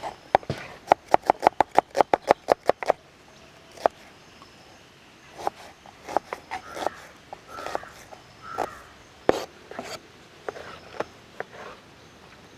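Kitchen knife chopping red onion on a plastic cutting board: a quick, even run of knocks, about six a second, for the first few seconds, then slower, scattered cuts.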